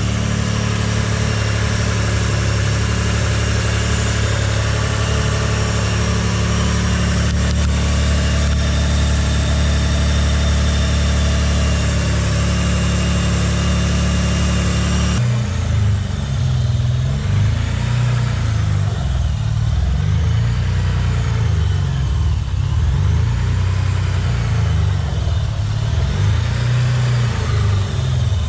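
Mitsubishi GTO's twin-turbo DOHC V6 idling steadily with a persistent high whine that new intake manifold gaskets have not cured. The owner had taken the whine for a boost leak. About halfway through the sound changes abruptly to a lower, pulsing idle.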